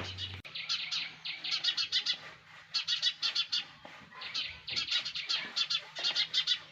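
Sparrow chicks in a nest chirping in quick runs of rapid high calls, several runs a second or so long with short pauses between them.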